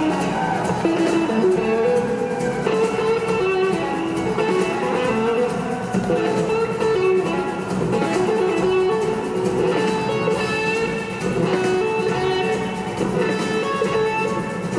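Live blues-rock band playing, electric guitars to the fore over drums and bass, with a repeating guitar riff.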